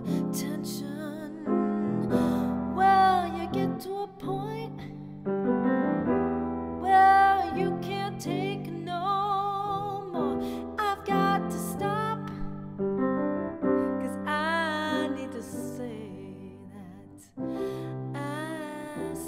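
A woman sings with vibrato while accompanying herself on a grand piano, her sung phrases coming and going over sustained piano chords.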